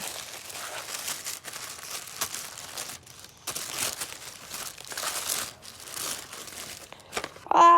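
A wrapped package being handled and pulled open, its wrapping rustling in uneven bursts.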